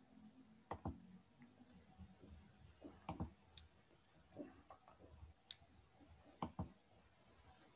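Computer mouse clicking: a handful of short, sharp clicks, several in quick pairs, scattered over near silence.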